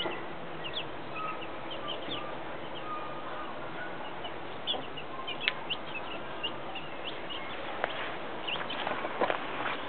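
Young chicks peeping in many short, high cheeps, with a hen clucking among them. Near the end come a few sharp rustling taps.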